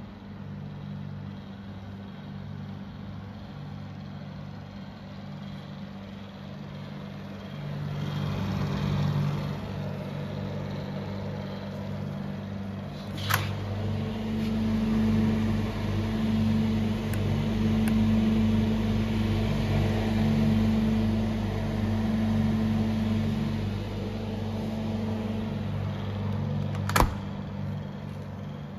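Afinox three-door refrigerated counter on a test run, its refrigeration unit running with a steady hum. It gets louder partway through, with a sharp click about halfway and another near the end as a door is opened and then shut.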